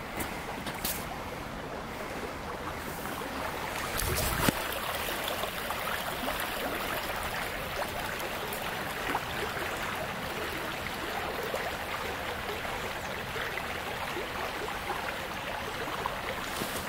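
Small creek water rushing steadily over a shallow riffle, with one short knock about four and a half seconds in.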